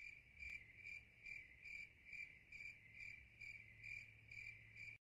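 A cricket chirping faintly and evenly, about two or three chirps a second.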